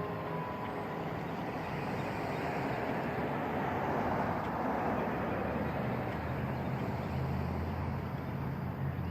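Road traffic: a vehicle passes, its noise swelling to a peak about four to five seconds in and then easing, followed by a low steady engine hum. The last notes of a church bell die away at the start.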